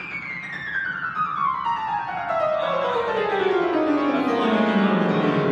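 A 93-year-old grand piano played key by key down the keyboard, a quick run of single notes falling from the high treble into the bass and growing louder as it descends. The keys are being checked one by one just after a tuning.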